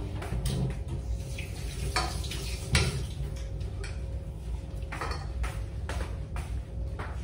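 Dishes and spoons clinking and knocking on a dining table during a meal: a string of short, irregular clinks, the loudest about three seconds in.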